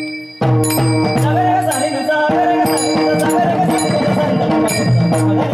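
Warkari bhajan music: mridang drum strokes and ringing metallic cymbal strikes over held tones, with a voice singing the melody from about a second and a half in. The music drops briefly right at the start and comes back in under half a second.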